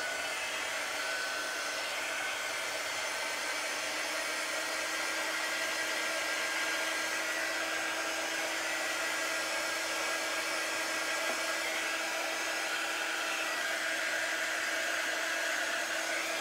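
Small handheld craft heat tool running steadily, blowing hot air to dry wet paint on a craft ornament; an even whooshing blow with a steady hum under it.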